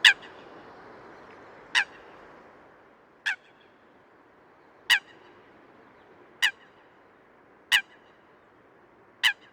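Eurasian coot giving a series of seven short, sharp calls, one about every one and a half seconds.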